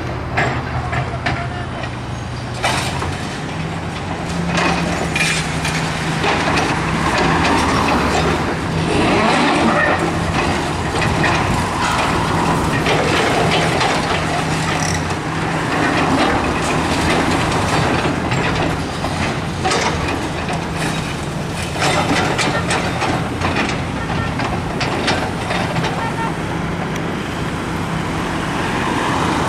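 Diesel engines of two tracked demolition excavators, a Komatsu and a Caterpillar 325C, running steadily under load. Over the engines comes a continuous irregular clatter of concrete and masonry rubble cracking and crunching as the shear and the hydraulic breaker work it.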